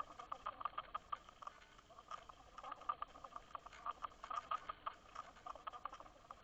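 Faint, irregular clicking and ticking recorded underwater through a Waterwolf fishing line camera's housing, several ticks a second with no steady rhythm, over a low hiss.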